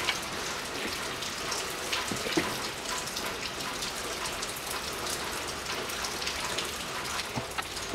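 Steady patter of rain, many small drops ticking without a break.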